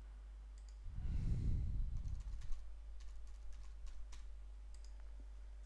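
Typing on a computer keyboard: a run of light, irregular key clicks as a name is entered, with a brief low rumble about a second in.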